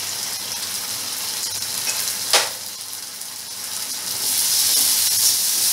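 Chopped onion, garlic and chilli sizzling in hot oil in an iron kadhai while a steel spoon stirs, with one sharp clink of the spoon on the pan a little over two seconds in. The sizzle grows louder about four seconds in as the red chilli paste is stirred into the hot oil.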